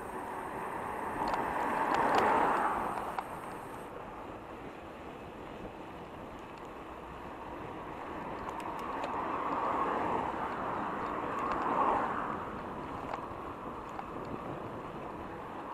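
Road traffic heard while cycling: a steady rush of road noise, with motor vehicles going by and swelling then fading about two seconds in and again around ten to twelve seconds in.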